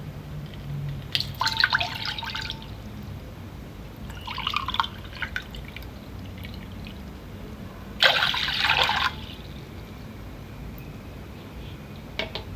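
Water poured from a glass into a sufuria cooking pot in three short pours, about a second and a half in, about four and a half seconds in and about eight seconds in, the last the longest and loudest.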